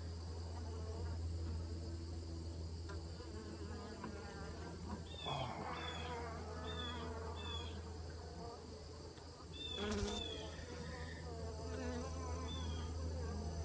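Honeybees buzzing around an opened top-bar hive: a steady hum with faint wavering flight tones. Short high falling chirps come several times, and a single knock sounds about ten seconds in.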